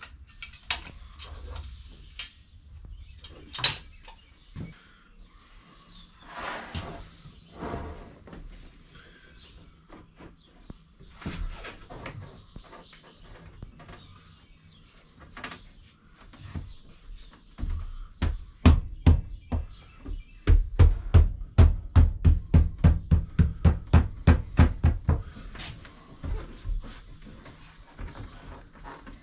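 Work noises while a backsplash wall tile is set into place: scattered clicks and knocks. Past the middle comes a quick regular run of thumps, about four a second, lasting several seconds.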